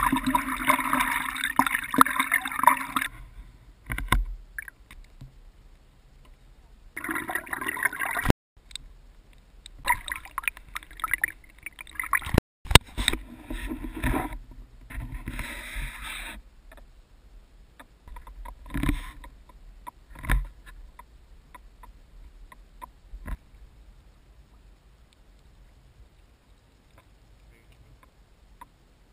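Water rushing and splashing past a Hawaiian outrigger canoe being paddled, loud in several stretches that break off abruptly, then quieter paddle strokes with a few short knocks.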